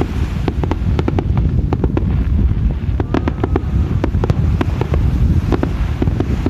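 Fireworks going off over the sea: a rapid, irregular volley of sharp bangs and crackles, several a second, from low shells and fountains. Heavy wind rumble on the microphone runs underneath.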